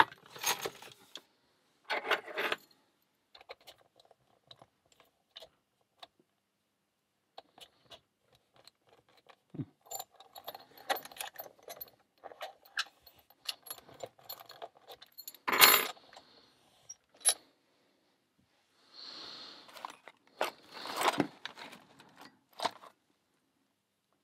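Small metallic clicks, clinks and short rattles as a Pollux 5 five-pin euro cylinder and its lock picks and tension tool are handled and the tools set into the keyway. There is one sharper click about two-thirds of the way in, and a brief scrape followed by a run of clicks near the end.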